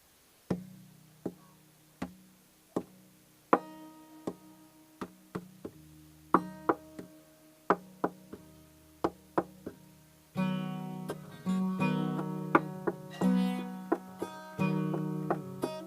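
Acoustic guitar played solo as the introduction to a gospel hymn: separate plucked notes and chords, a second or less apart, starting about half a second in. About ten seconds in the playing turns into fuller, continuous strumming.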